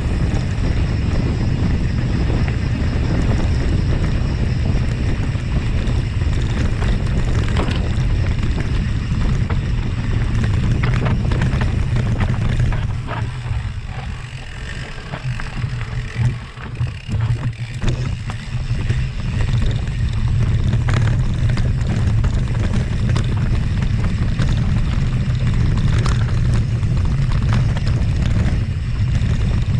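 Wind buffeting the microphone of a camera riding along on a mountain bike, over a steady low rumble, with scattered knocks and rattles from the bike on rough trail. It eases off for a few seconds about halfway through, then picks up again.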